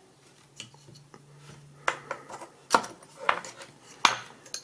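Hard plastic clicks and knocks as the blade rotor of a PC power-supply cooling fan is pulled off its motor shaft and handled, with several sharp clicks mostly in the second half.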